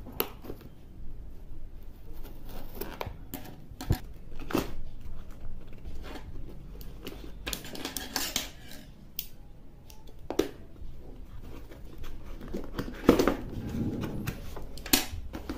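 Scissors cutting open a small cardboard box, with irregular snips, clicks and scrapes of the blades on the cardboard and tape. Louder scraping comes about halfway through and again near the end.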